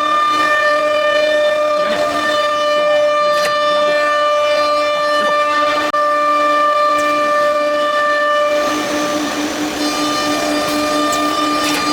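Nesting CNC router spindle running with a steady high whine and several overtones. About nine seconds in, the tone shifts and a rougher hiss of cutting noise rises.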